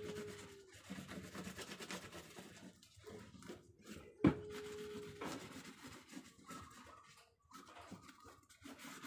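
Hand rubbing and smoothing glued kraft cement-bag paper onto a wooden barongan head, giving a soft rustling scrape of paper on wood. A single sharp knock about four seconds in, with a faint steady tone in the background just after it.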